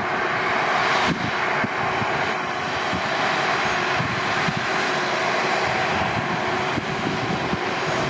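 Massey Ferguson S8740 tractor pulling a Massey Ferguson 2270XD large square baler, a steady drone of engine and baler machinery with a faint held note under it.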